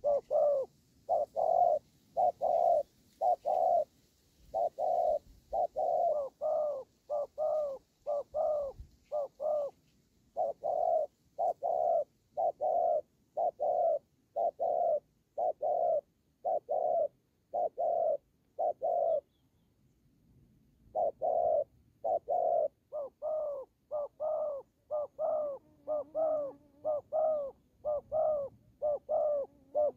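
Spotted doves cooing in quick, short, repeated notes, about two a second. This is the aggressive cooing of a caged decoy male and a wild male squaring off over territory. The cooing breaks off for about two seconds a little past halfway, then resumes.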